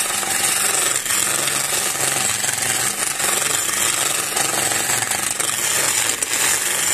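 Skew chisel cutting along a long walking-stick blank spinning on a wood lathe: a steady, rough hiss of wood being shaved, over the running lathe.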